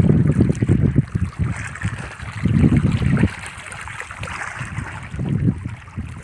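Wind buffeting the microphone in uneven gusts, three strongest near the start, about midway and near the end, over a steady hiss of moving water.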